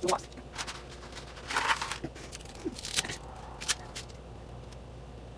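Handling at a stovetop cooking pot: several sharp clicks and knocks and a brief crackling rustle about a second and a half in, over a low steady hum.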